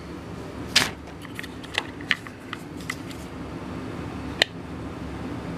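Light clicks and taps from handling the black plastic parts of a trimmer head over a steady low hum. There is a sharper click just under a second in, a scatter of softer ones over the next two seconds, and another about four seconds in.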